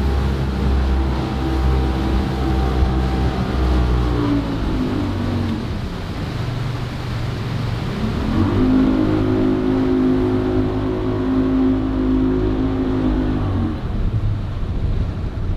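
A boat engine running under way. Its pitch drops about four seconds in, climbs back about eight seconds in and holds steady, then drops again near the end as the throttle is eased.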